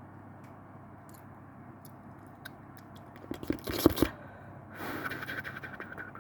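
Scratching and crackling handling noise on a phone microphone turned up high, over a steady hiss. A burst of sharp crackles comes about three and a half seconds in, then a rougher scraping stretch near the end.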